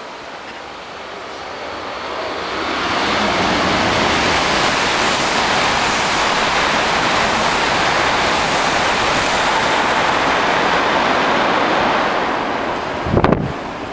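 Shinkansen bullet train passing straight through the station at speed: a rushing roar builds over the first few seconds, holds steady with a thin high whine near its start and end, and fades about twelve seconds in. Near the end its wake buffets the microphone in two gusts.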